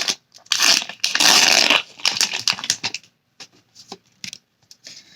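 Foil booster-pack wrapper crinkling, loudest about a second in, then trading cards being handled with light clicks and rustles.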